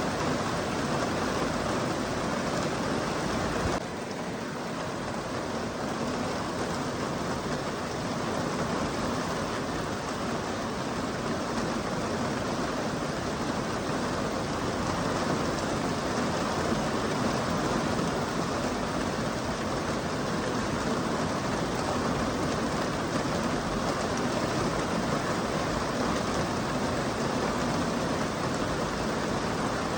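Steady, even rain falling, with a sudden slight drop in level about four seconds in before it builds back up.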